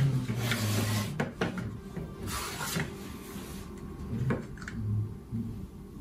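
Handling noise: rustling with a few light clicks and knocks as small parts and wires of a vacuum cleaner's turbo brush are handled on a wooden workbench.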